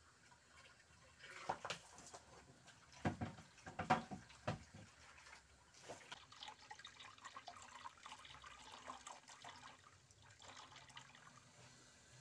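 Water running from a hose into a washing machine tub. There are several sharp knocks and clatters in the first half.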